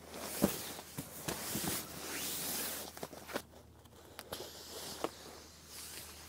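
Rustling and handling of camping gear, mostly in the first few seconds, with several light knocks.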